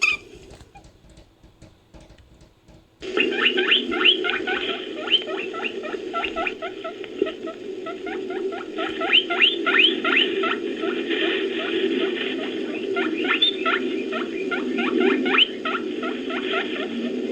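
Invented creature sound effect made from layered rabbit and bear cub recordings: faint clicking for about three seconds, then a dense stream of quick rising squeaks over a low, rough animal rumble.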